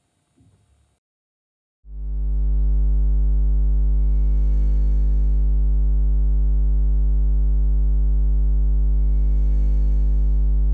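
Low synthesizer drone, steady and buzzy with many overtones, starting abruptly about two seconds in, with two airy hissing swells rising over it: an electronic end-logo sting.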